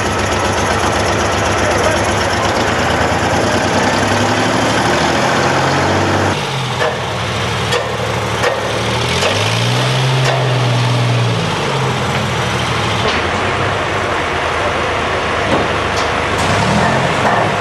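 A crane's heavy engine runs, its pitch rising and falling a few times as it revs while hoisting. A few sharp knocks come partway through and again near the end.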